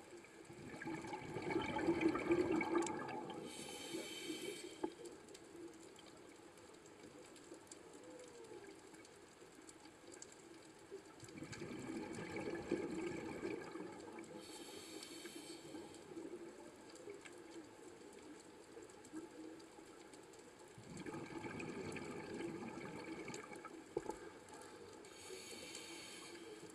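Scuba diver breathing through a regulator underwater: three breaths about ten seconds apart, each a few seconds of bubbling followed by a short hiss.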